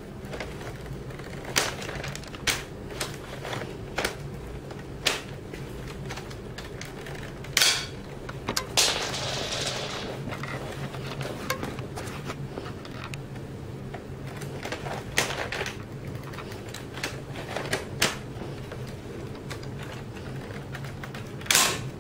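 Plastic clicks and clacks of a working LEGO Barrett M82A1 model rifle's mechanism as it is handled, with scattered sharp snaps. Two snaps are louder, one about a third of the way in and one near the end, and a short hiss follows the first; a steady low hum lies under it all.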